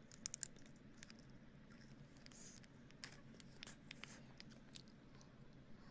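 Faint close-miked ASMR mouth sounds: scattered small wet clicks and pops, with a quick cluster of sharper clicks near the start and a soft breath about two and a half seconds in.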